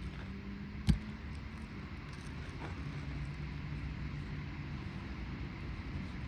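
A single sharp hammer strike on a roofing nail in an asphalt shingle about a second in, then a steady low rumble.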